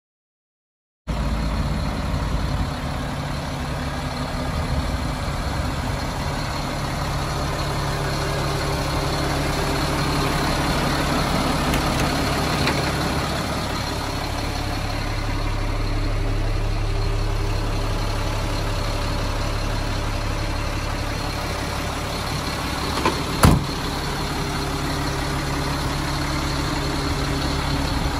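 Cat 3126 turbocharged diesel of a Stewart & Stevenson M1084A1 6x6 military truck idling steadily. It starts about a second in; a single sharp knock late on is the loudest moment.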